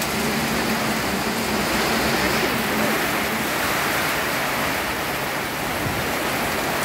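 Torrential monsoon rain pouring onto a flooded yard and the surrounding leaves and roofs, a steady dense hiss of downpour.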